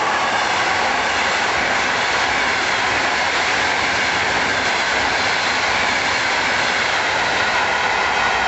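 Electric-hauled passenger trains running past at speed: a loud, steady rush of coach wheels on the rails and air noise.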